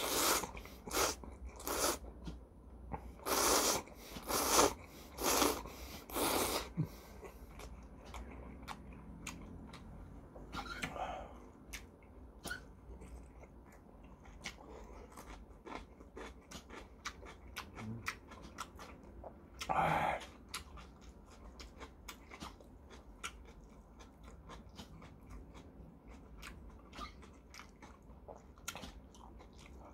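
Eating ramen noodles: a series of loud, hard slurps in the first seven seconds, then quieter chewing with small crisp crunches from cubed radish kimchi, and one more slurp about twenty seconds in.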